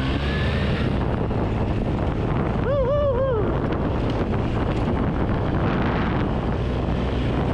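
Polaris Sportsman 600 twin-cylinder ATV engine running steadily while riding, with heavy wind noise on the microphone. A short wavering tone sounds about three seconds in.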